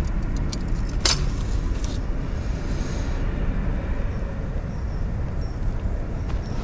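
A steady low rumble, with a few light clicks in the first two seconds and one sharper click about a second in.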